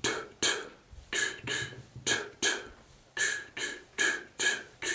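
Rhythmic huffed breaths through the mouth and throat, a man voicing the 'da, da, ta, ta' beginner harmonica rhythm without the instrument, breathing in and out in short strokes about three times a second.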